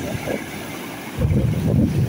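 Sea surf breaking and washing up over a pebble beach, with wind rumbling on the microphone. The noise dips, then a wave surges in a little past halfway through.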